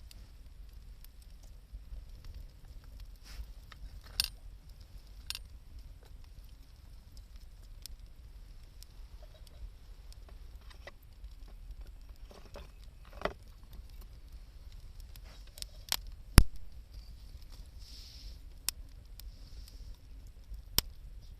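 Wood campfire burning, with scattered sharp crackles and pops, the loudest about sixteen seconds in.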